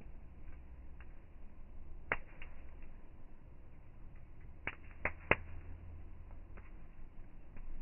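Wood campfire crackling, with sharp pops at irregular moments, the loudest three coming close together about five seconds in.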